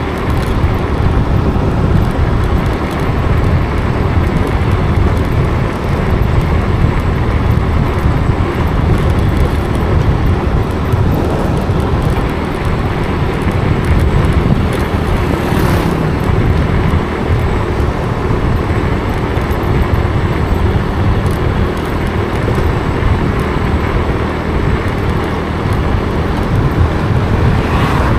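Steady road noise of a moving vehicle, heaviest in the low end and unbroken throughout.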